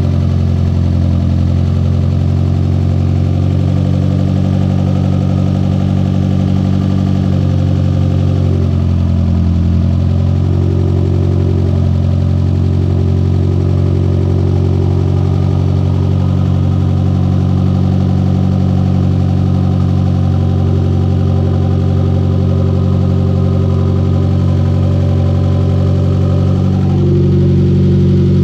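Chrysler Conquest's 2.6-litre G54B turbocharged four-cylinder engine idling steadily while it warms up for a timing check, with a fuel pressure regulator newly fitted.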